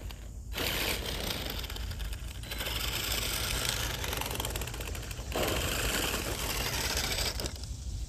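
Radio-controlled mud truck driving over loose gravel: its motor and drivetrain whir with a rapid clatter while the tyres crunch over stones, coming in several surges as it accelerates.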